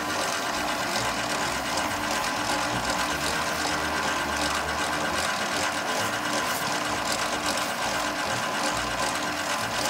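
An electric pasta machine's motor running steadily: a continuous mechanical whirring hum with a few steady tones over a hiss.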